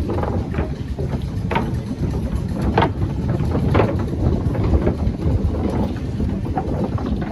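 Boardwalk tram car running, a steady rumble with a few sharp clacks from the ride.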